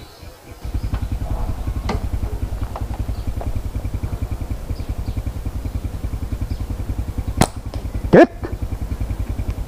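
A small engine starts running with a fast, even low throb about half a second in and keeps going steadily. Near the end there are two sharp clicks, the second louder and with a brief rising squeak.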